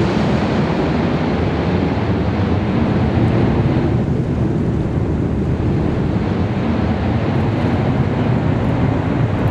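Airbus A340's four jet engines at takeoff thrust: a steady, loud rush of engine noise and airflow as the airliner rotates and lifts off. The hiss softens a little about four seconds in.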